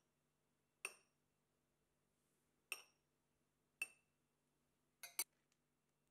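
Metal spoon clinking against the rim of a glass dessert cup while diced strawberries are spooned in: five sharp, briefly ringing clinks, the last two close together near the end.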